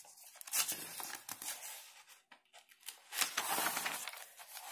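Paper rustling as a notebook page is turned over: a softer rustle in the first couple of seconds, then a louder one about three seconds in.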